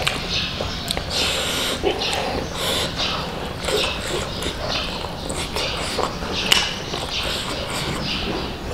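Chewing and lip smacking as a mouthful of biryani is eaten, with fingers squishing and mixing the rice. The sound is a dense, irregular run of wet clicks and smacks.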